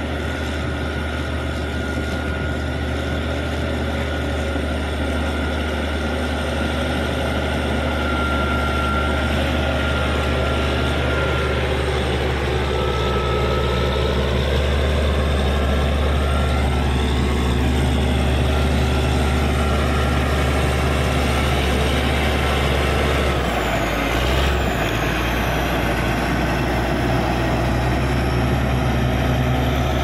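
Caterpillar D6G bulldozer's six-cylinder diesel engine running steadily under load while the blade pushes a heap of wet soil. A faint high whine comes and goes above the engine.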